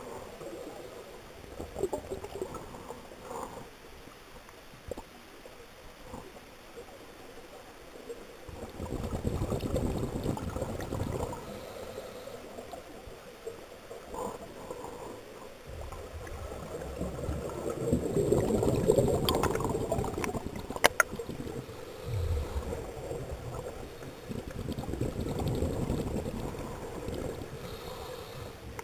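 Scuba exhaust bubbles gurgling underwater, coming in irregular swells every few seconds as a diver breathes out through the regulator. There are two sharp clicks about two-thirds of the way through.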